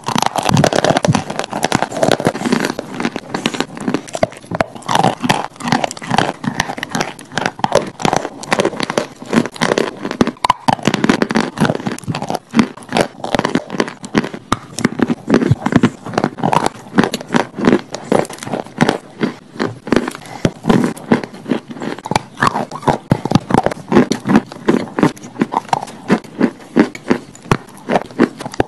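Close-miked crunching and chewing of chalk: many crisp cracks and crunches in quick succession as pieces are bitten off and chewed.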